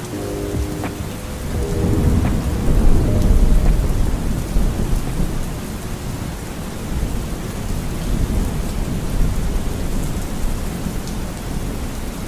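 Steady rain with a long, low roll of thunder that swells about two seconds in and is loudest around three to four seconds in. The last held notes of a soft music track fade out in the first two seconds.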